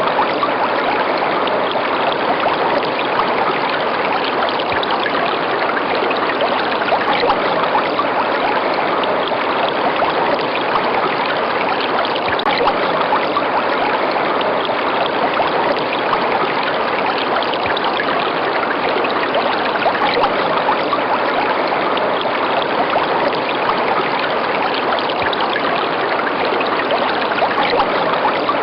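River water running steadily, an even, unbroken flow with no separate splashes or other events standing out.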